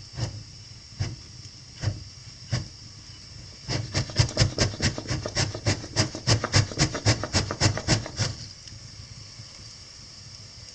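Scraping strokes against wood. Four single strokes come first, then a quick, even run of about five strokes a second that lasts about four seconds and stops.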